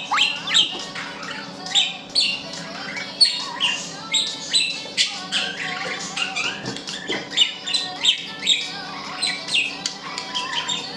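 Budgerigars chirping and squawking, with many short, sharp calls overlapping in quick succession.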